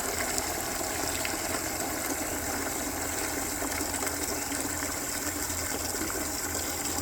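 Water running steadily into a bucket, a continuous rush with no breaks.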